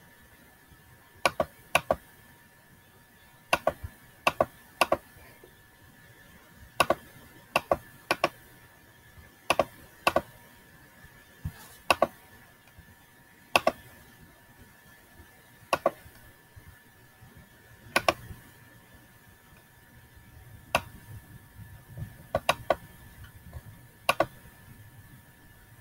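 Computer mouse clicking, single and quick double clicks at an uneven pace, over a faint steady high-pitched whine.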